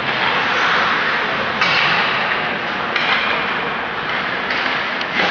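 Ice hockey play: skate blades scraping and cutting across the ice in a dense hiss that starts and stops abruptly several times, with sticks and puck knocking a couple of times near the end.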